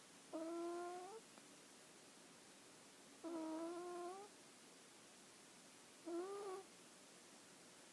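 A sleeping pet snoring: three short, high-pitched snores about three seconds apart, each rising slightly in pitch.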